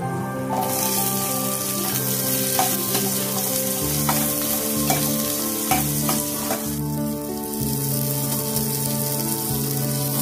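Diced onions, cashews and almonds sizzling in hot oil in a steel pan as they are stirred, the sizzle starting about half a second in. A spoon clinks against the pan several times.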